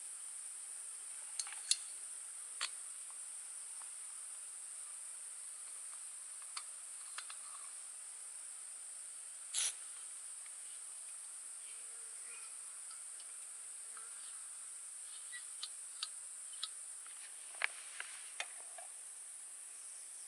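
Steady high-pitched insect chorus, with about a dozen small clicks and clinks scattered through it, the loudest a brief one about halfway.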